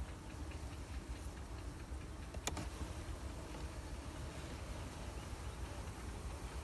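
Honeybees buzzing faintly at an opened hive over a steady low rumble, with one sharp click about two and a half seconds in.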